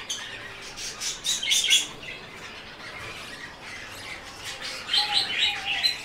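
Budgerigars chirping in short bursts of rapid high chirps, about a second in and again near the end.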